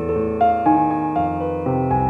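Slow piano music: held notes that ring on, with a new note struck every half second or so.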